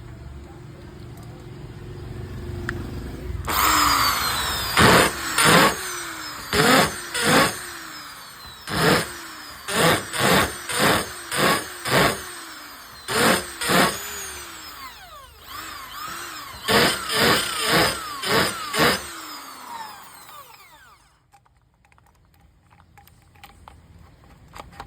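Bosch 550 W 13 mm electric drill pulsed on and off in many short trigger bursts. Each burst spins the motor up with a whine and lets it wind down, in quick clusters starting a few seconds in. The bursts stop after about twenty seconds and it goes much quieter.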